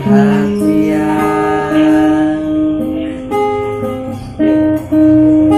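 Nylon-string classical guitar strummed, a chord about every second, each ringing on and fading, in an instrumental gap between sung lines.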